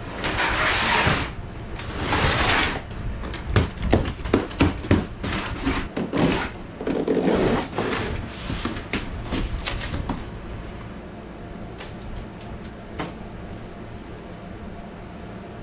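A cardboard box sliding and scraping on a concrete floor, then a quick run of sharp snaps, knocks and rustles as plastic packing straps are cut and the carton is opened. After that it settles to a steady air-conditioner hum with a few light metal clinks of small hardware.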